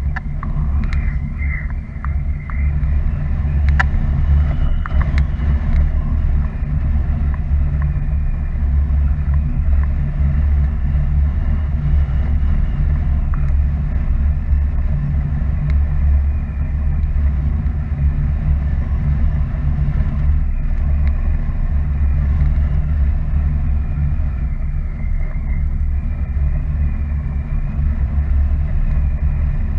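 Wind rushing over the camera microphone in paraglider flight: a steady low rumble of airflow, with a few faint clicks in the first few seconds.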